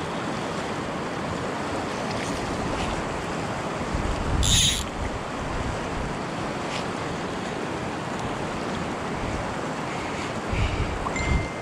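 Fast river current rushing over rocks in a shallow run, a steady even rush of water. Wind buffets the microphone briefly about four and a half seconds in and a couple of times near the end.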